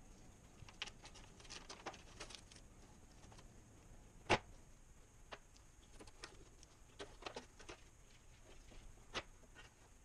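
Scattered small scrapes and clicks of a hobby knife working old stickers off a hard plastic toy, with the plastic being handled; a sharper click about four seconds in and another near the end.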